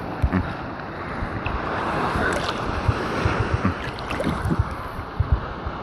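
Sea water sloshing and splashing around a phone held at the surface, with wind on the microphone and frequent short low thumps as water slaps against it.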